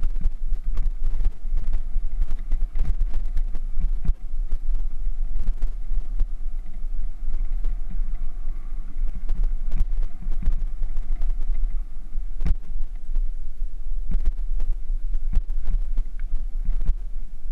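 Bicycle riding over a gravel trail, heard through a camera microphone on the moving bike: a steady low wind rumble on the microphone with frequent knocks and rattles from the bumps, one sharper knock about twelve seconds in.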